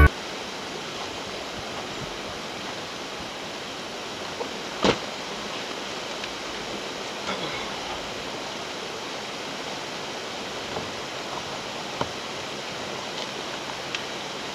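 Steady outdoor hiss with a few faint knocks and scrapes from digging by hand in a dirt pit, one sharper knock about five seconds in.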